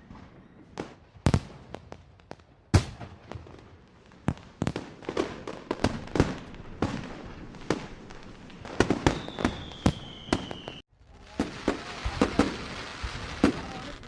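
Fireworks going off: a string of sharp bangs and crackling pops at irregular intervals. About nine seconds in, a thin whistling tone falls slightly for under two seconds. It cuts off abruptly just before eleven seconds, and more bangs follow over a steady hiss.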